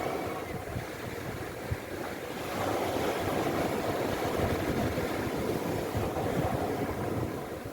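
Sea waves washing in, a steady surf noise that swells for a few seconds and then eases, with wind buffeting the microphone.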